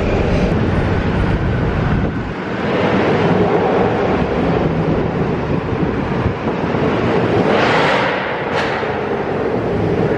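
Mercedes C63 AMG running, a steady low engine note under a dense rush of road and wind noise, with a brief louder whooshing swell about eight seconds in.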